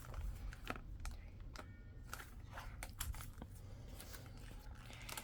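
Faint, irregular crinkling and tearing of gift wrapping paper as a small present is unwrapped.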